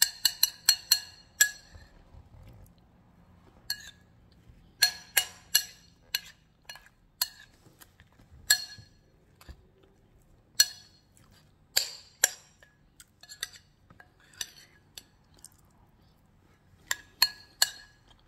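Metal spoon clinking against a ceramic bowl as crumble and ice cream are mixed and scooped: a quick run of ringing clinks at first, then single clinks every second or so.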